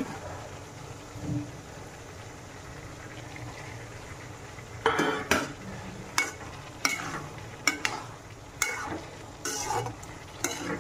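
Green peas and tomato pieces frying with a low, steady sizzle in a metal kadai. From about halfway in, a metal spatula stirs them, making a run of sharp scrapes and knocks against the pan.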